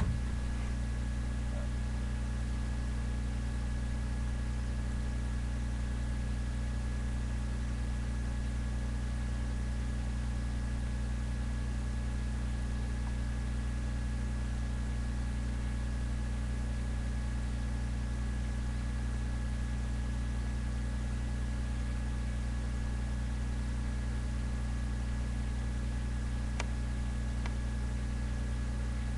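Steady low hum, unchanging throughout, with a thin high whine held over it and a single faint click near the end.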